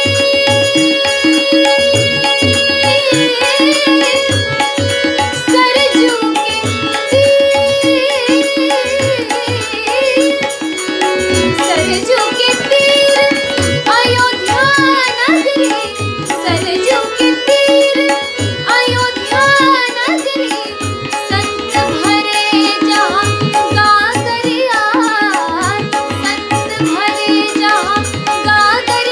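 Hindi devotional bhajan: a young woman's solo voice sings a wavering, ornamented melody, coming in about three seconds in. Tabla strokes keep a steady rhythm under her, over a sustained harmonium drone.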